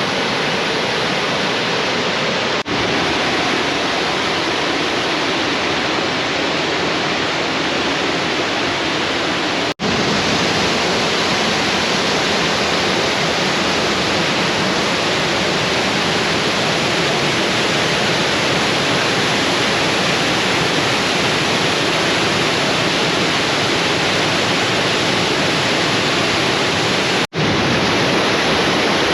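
Gooseberry Falls' water rushing in a steady, loud wash of noise, the river running high after weeks of rain. It is interrupted by three brief cuts.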